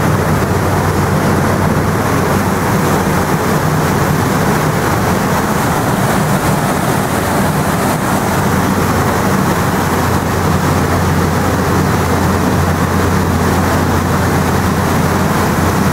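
Boat's engine droning steadily with a low hum, under a continuous rush of churning water and wind.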